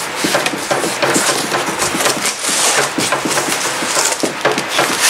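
Packaging being handled while a unit is unpacked: continuous rustling and crinkling with many small clicks and knocks, growing into a denser crackle near the end.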